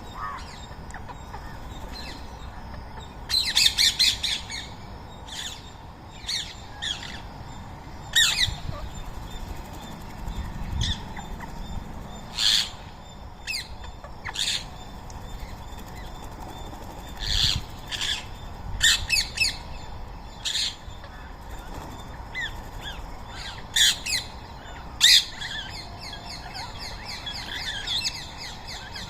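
Rose-ringed parakeets giving short, harsh squawking calls, one or a few at a time at irregular intervals, some in quick runs of several.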